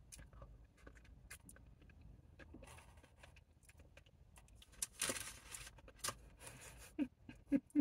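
Close-up eating sounds from chewing a sticky-sauced chicken wing: wet smacking and small sticky clicks, with a brief rustle about five seconds in.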